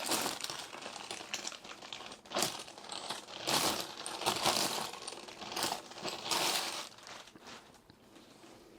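Plastic wrapping being pulled off a package and crinkled, in a series of rustling bursts about a second apart that die down near the end.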